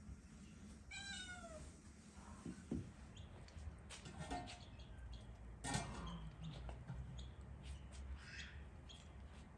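A cat meowing: one falling meow about a second in, with fainter calls later, and a single sharp knock about halfway through.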